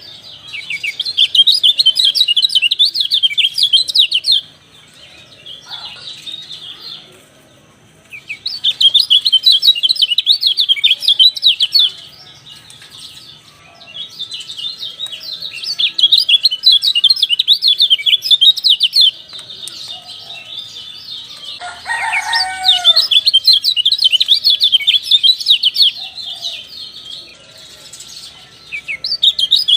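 Kecial songbird chattering in fast, trilling chirp phrases of a few seconds each, repeated with short pauses. A lower, falling call from another bird breaks in briefly about two-thirds of the way through.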